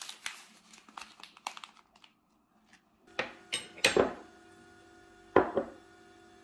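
A metal spoon scraping and clinking in a ceramic mug as coconut flakes are spooned in, with many small clicks and scrapes. In the second half come four loud sharp knocks of ceramic and metal, the loudest two near the end, over a faint steady hum.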